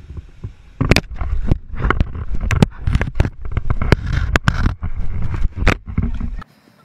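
An alligator biting and chewing on a camera it has grabbed in its jaws: a fast, irregular series of sharp knocks and clacks as its teeth hit the camera housing, over a low rumble of handling and water. The sound cuts off suddenly near the end.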